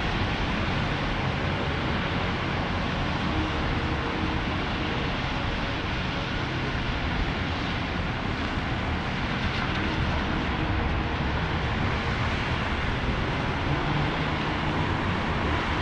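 City street traffic on wet asphalt: cars driving through the intersection, their engines and tyres on the wet road blending into a steady wash of noise with a low rumble.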